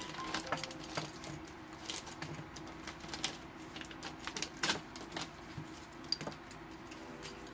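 Clear plastic bags crinkling and photocards and plastic card holders clicking as they are handled, in a scatter of sharp, irregular clicks and rustles.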